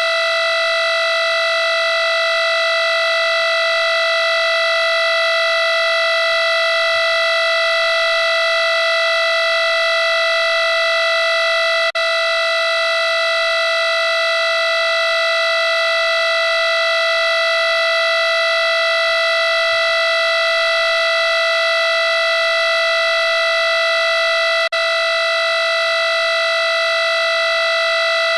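A steady, buzzy electronic tone held at one pitch without change, with two momentary dropouts about twelve seconds in and again near the end where it restarts.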